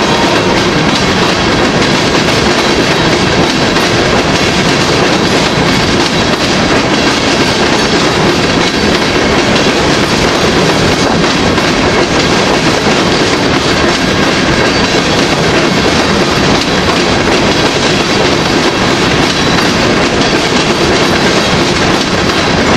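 Rock train's open hopper cars rolling past close by: a loud, steady rumble and clatter of steel wheels on the rails.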